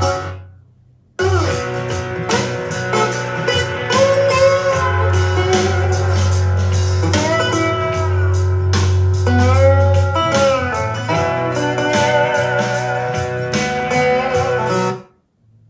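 Music played back through a portable Bluetooth speaker: a track with heavy bass, a steady drum beat and a bending, wavering guitar lead. It cuts out for about a second just after the start and again near the end.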